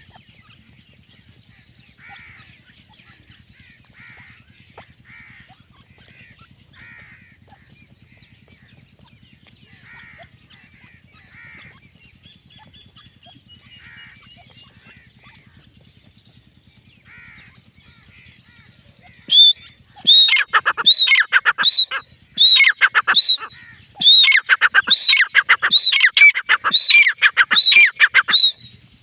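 Grey francolins calling: soft scattered chirping notes, then, about two-thirds of the way through, the loud, high-pitched ringing teetar call, a rapid run of repeated notes about two a second that lasts some nine seconds and breaks off just before the end.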